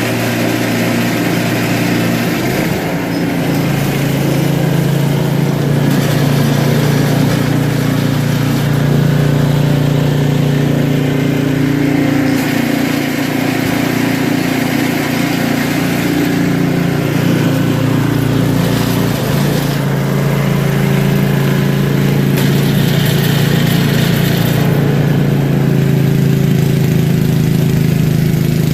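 Small petrol engine running steadily, its note shifting in pitch a couple of times as the load changes.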